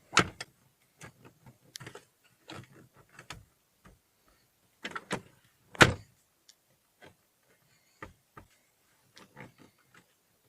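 Clicks and knocks of a Renault Logan's plastic interior door handle being pressed and worked by hand, with two louder thumps, one right at the start and one about six seconds in. No squeak or creak: the handle's mounts have just been padded with sound-deadening material.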